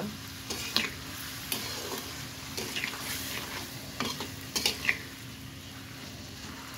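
Metal spatula scraping and stirring potatoes through a spice paste in an aluminium kadai, over a steady sizzle of frying. The masala is being sautéed with a little water just added so it does not burn. There are irregular scrapes every half second to a second.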